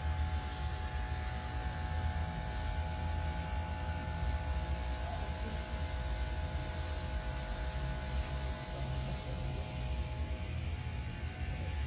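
Steady low hum with a few faint, steady higher tones over a soft, even hiss.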